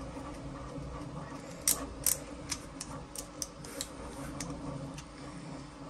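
Light clicks and taps of small metal parts of a magnetic hook (magnet, washer, eyebolt) being handled and fitted together. Two sharper clicks come close together nearly two seconds in, then scattered lighter ticks, over a steady low hum.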